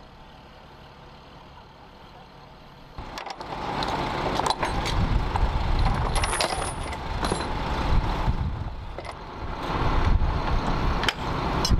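A faint low hum, then from about three seconds in a loud rumble of heavy vehicle machinery, with several sharp knocks through it.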